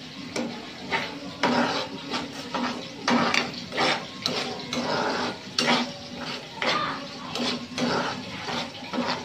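A metal spoon stirring coconut-milk stew in a pan, scraping and knocking against the pan in repeated strokes, about one to two a second.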